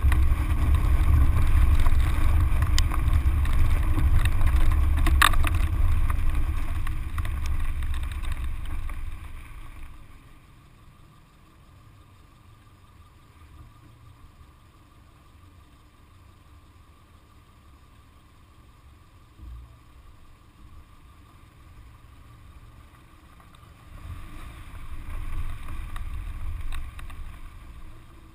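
Car driving on loose gravel: engine and tyre rumble with wind on the body-mounted microphone and a few sharp ticks of stones. About nine seconds in it eases off to a quiet slow roll, and grows louder again for a few seconds near the end.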